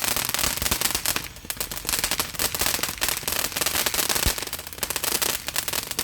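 Small consumer fireworks crackling: a dense, rapid run of sharp pops that lets up briefly about a second and a half in and then carries on.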